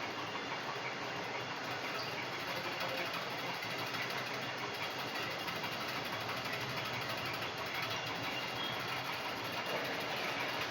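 Lathe running while a round plate is turned on it, a steady mechanical noise with no pauses or changes.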